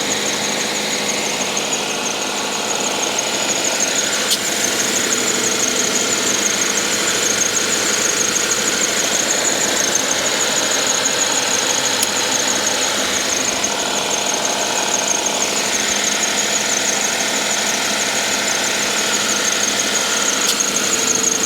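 A 2014 Subaru Forester XT's turbocharged flat-four engine running with its air-conditioning compressor engaged while the system is being charged with refrigerant. A steady high-pitched whine sits over the engine noise.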